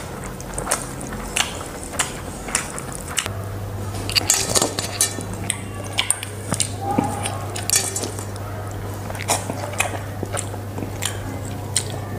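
Close-miked eating: chewing and slurping of Maggi instant noodles, with a steel spoon clicking against a steel bowl and plate. A steady low hum comes in about three seconds in.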